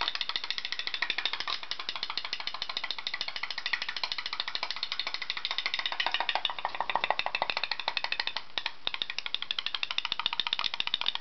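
Putt-putt steam boat's pop-pop engine running: a rapid, even clicking from the flame-heated boiler pushing water in and out of its pipes, driving the boat forward.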